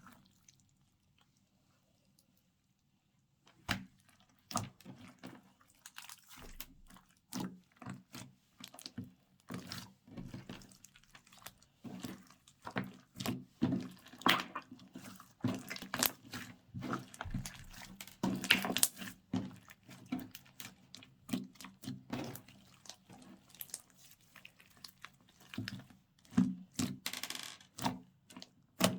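Slime being squished and mixed by hand: a run of irregular sticky clicks and wet pops, starting after a few seconds of near silence.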